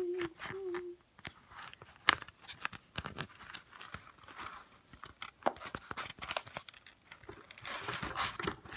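A sheet of white paper being handled and rolled into a tube, rustling and crinkling with irregular sharp crackles. A short hummed note about a second in.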